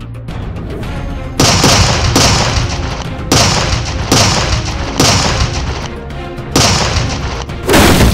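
A broadside of cannon fire: six booms one to two seconds apart, each fading away, over dramatic soundtrack music.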